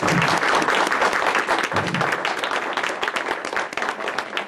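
Audience applauding, a dense patter of many hands clapping that thins out near the end.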